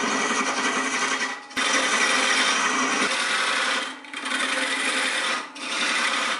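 Wood lathe spinning a tobacco pipe bowl while a hand-held turning chisel cuts the wood: a loud cutting hiss over the lathe's steady hum. These are the final rounding cuts that shape the bowl into a ball. The cutting comes in four passes with brief breaks about one and a half, four and five and a half seconds in, and a sharp click as the second pass starts.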